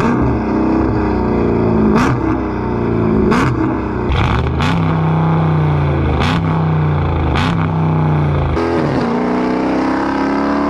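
Dodge Scat Pack's 392 HEMI V8 through an aftermarket exhaust, revving hard several times, the pitch dropping and climbing again between revs, with about seven sharp cracks along the way.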